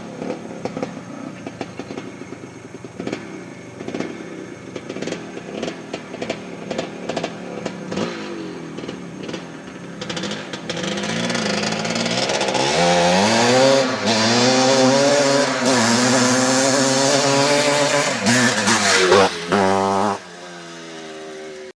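Dirt bike engine running uneven and popping at low revs, then, about ten seconds in, pulling hard with its pitch climbing and wavering as it is ridden or revved, before dropping off near the end.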